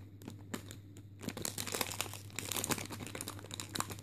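Clear plastic bag around a squishy toy crinkling as it is handled and squeezed. The crackles come irregularly and grow busier in the second half.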